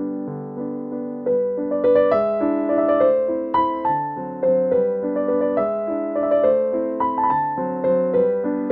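Background piano music: a melody of struck notes over chords, each note fading after it is played.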